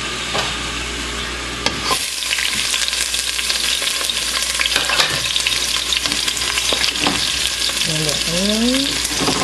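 Chopped onion frying in hot canola oil in a pot: a sizzle that jumps up suddenly about two seconds in as the onion goes into the oil, with scattered clicks.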